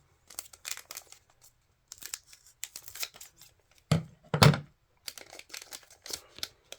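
A trading-card pack wrapper being torn open and crinkled by hand, with scattered crackling rustles and two louder thumps about four seconds in.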